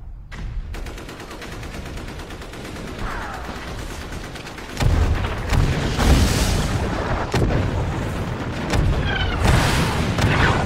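Battle sounds: a rapid run of gunshots, then heavier, deeper booms and gunfire that grow louder about five seconds in.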